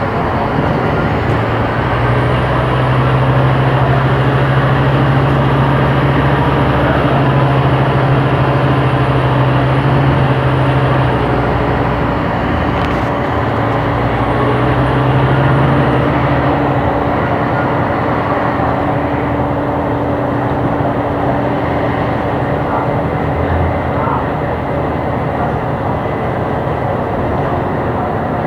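Scania K270IB bus engine running under way with a steady low drone. The drone holds strong for about ten seconds, eases off, comes back briefly in the middle, then settles lower. A thin high whine rises early on, holds, and falls away near the middle.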